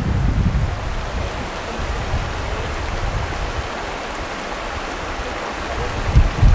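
Steady rushing of a flowing river. Brief low buffets of wind on the microphone come near the end.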